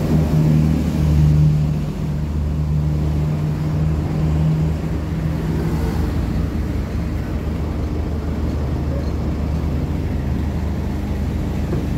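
Tow truck engine running steadily with a low hum, a little louder in the first couple of seconds before settling.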